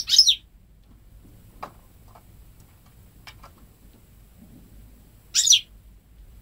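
Goldfinch × canary hybrid (saka mule) giving two short, quick twittering phrases of high notes, one at the start and one about five seconds later, with faint ticks and soft notes in between. The breeder says the bird has never heard a male canary and sings only goldfinch phrases.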